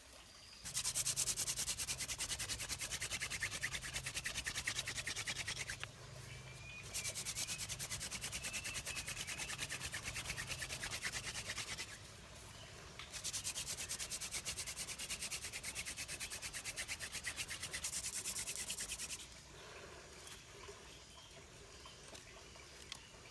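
A wooden hand-drill spindle is spun back and forth between the palms against a wooden hearth stick to make friction fire. It makes a rapid dry rubbing in three bouts of about five seconds each, with short pauses between.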